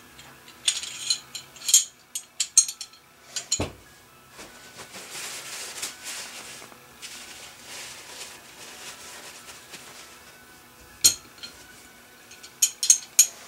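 Small metal parts of a field-stripped Smith & Wesson PC1911 pistol clicking and clinking as they are picked up and set down on a bench mat, with one heavier knock a few seconds in. In the middle a cloth rag rustles as a part is wiped.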